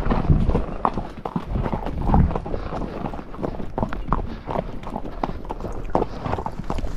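Hooves of a saddle horse and a loaded pack mule walking on a gravel dirt road: an uneven run of clip-clopping steps.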